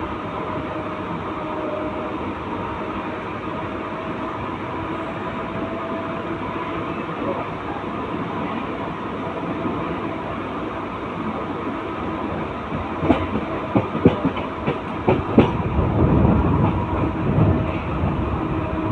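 Mumbai suburban local train running along the line: a steady rumble with a steady electric hum. About two-thirds of the way in, a quick run of sharp clacks as the wheels pass over rail joints or points, then the rumble grows louder for a few seconds.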